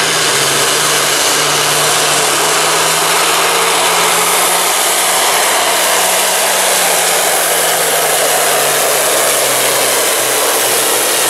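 Pro Farm pulling tractor's turbocharged diesel engine at full throttle, loud and steady with a heavy turbo rush as it drags the weighted sled, pouring black smoke under the load. Its note sags slightly about nine seconds in as the sled bears down.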